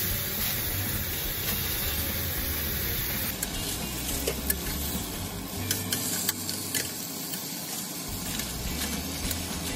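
Chicken breast sizzling in a ridged grill pan, a steady frying hiss with a few sharp ticks about the middle.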